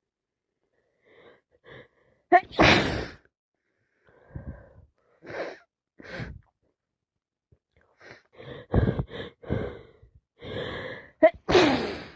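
A person with a cold sneezing: two loud sneezes, about two and a half seconds in and near the end, each set off by a quick catching inhale, with shorter breathy bursts in between.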